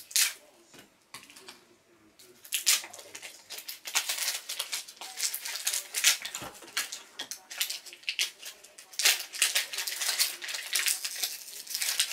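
Small plastic toys and objects being handled on a table: a run of clicks, taps and rattles, sparse at first and busier from about two and a half seconds in.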